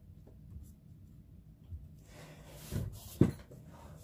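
Faint room tone, then from about two seconds in some rustling and two sharp knocks, the louder one about three seconds in, as the drawing pencil and paper are handled.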